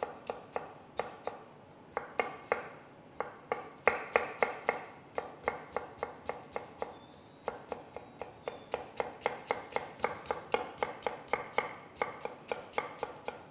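Chef's knife julienning a carrot on a wooden cutting board: a steady run of quick taps of the blade through the carrot onto the wood, about three to four a second, in runs with brief pauses.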